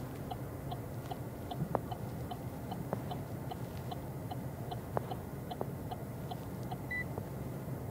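Opel Mokka-e's parking-sensor beeps sounding while the car reverses under its automatic park assist: short, evenly spaced pips about two and a half a second, over a low cabin rumble. A single higher chime sounds near the end.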